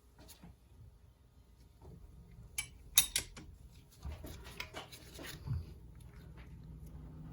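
Metal hand tools clinking as a bigger wrench is picked up and fitted onto a cylinder-head nut. A sharp clank comes about three seconds in, followed by a few lighter ticks.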